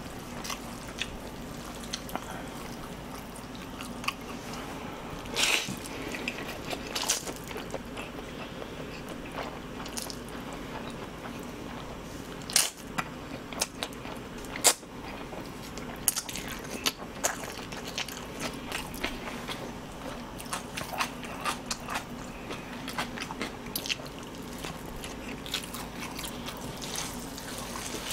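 A person eating cold spicy mixed noodles (jaengban guksu) close to the microphone: chewing mouthfuls with irregular wet clicks and smacks.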